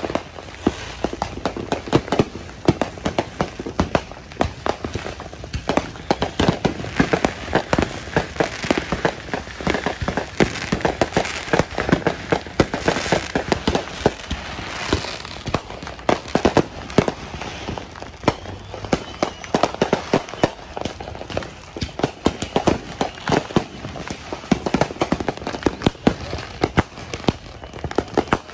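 Fireworks and firecrackers going off nonstop: a dense, overlapping barrage of sharp bangs and pops, several a second.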